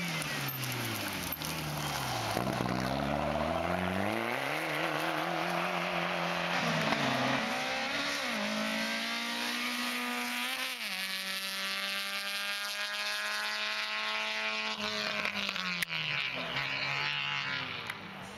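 Racing cars' engines revving hard through a cone slalom: the pitch dips and climbs with braking and acceleration and drops sharply at gear changes. A long flat-out pull fades near the end.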